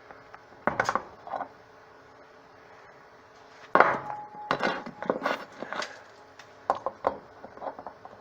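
Metal tools and workpieces being handled and set down: bursts of knocks and clatter, one brief ringing tone among them a little after the middle.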